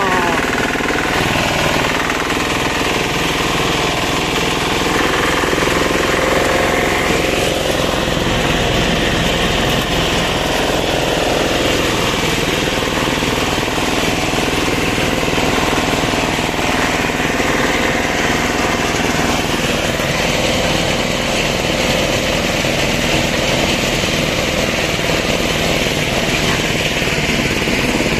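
Single-cylinder diesel engine of a tak tak, a two-wheeled farm tractor, running steadily under way in gear.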